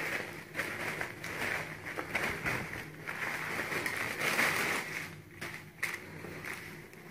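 Rustling and crinkling of a shirt and its plastic wrapping being pulled out of a cardboard box and unfolded by hand, an uneven run of soft crackles that eases off about five seconds in.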